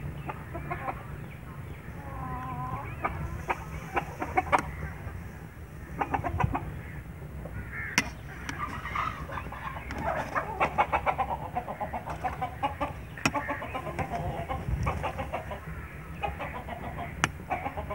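Chickens clucking on and off, with a few sharp clinks of a steel ladle against an aluminium pot.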